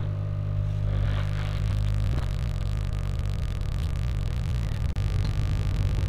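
Hot air gun blowing steadily on a circuit board, melting the solder to lift off a Bluetooth speaker's charging jack, over a low steady hum.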